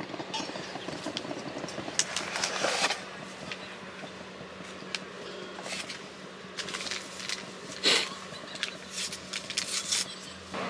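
Scattered short clinks and knocks of mugs and utensils being handled while a coffee is made, with a steady low hum underneath.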